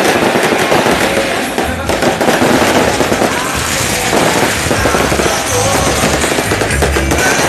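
Firecrackers crackling in a rapid, dense string, with music and a deep bass beat coming in under them about two seconds in.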